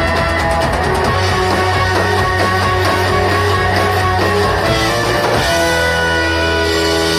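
Live rock band playing loud, with sustained electric guitar chords over a heavy bass drone; the music shifts to long held notes about two-thirds of the way through.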